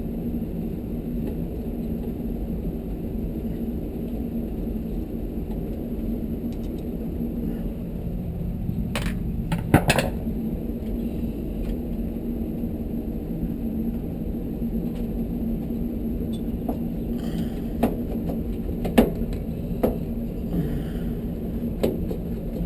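Screwdriver and screws working on a tankless water heater's burner assembly, with a few sharp metal clicks and taps about ten seconds in and several more in the second half. Under it runs a steady low hum.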